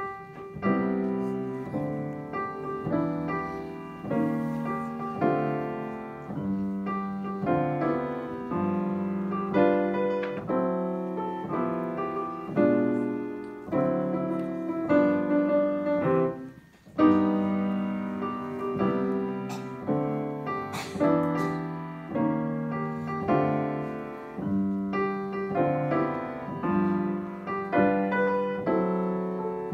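Acoustic grand piano played solo: the piece begins out of silence with a series of struck chords and melody notes that ring and decay, breaks off briefly about two-thirds of the way through, then carries on.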